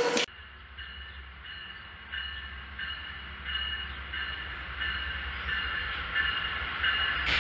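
Amtrak GE P42DC diesel locomotive arriving at a station, its bell ringing about one and a half strokes a second over a low engine rumble, both growing louder as it draws near.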